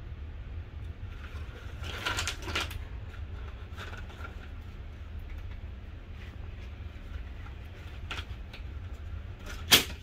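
Scissors snipping through the string ladder cords of a faux wood blind: a quick run of short snips about two seconds in, a few faint clicks after, and one sharp, louder snip near the end, over a steady low hum.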